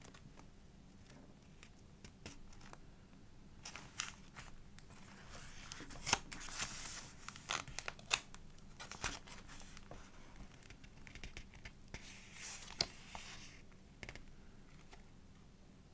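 Pages of a thick collaged art journal being turned and handled: paper rustling and crinkling with sharp snaps and taps, busiest through the middle and tailing off near the end.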